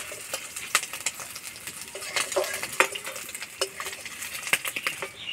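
Metal spatula scraping and clinking against a metal kadai while fried prawns are lifted out onto a steel plate, with a run of sharp clinks and a brief ringing of the metal. Hot mustard oil sizzles faintly underneath.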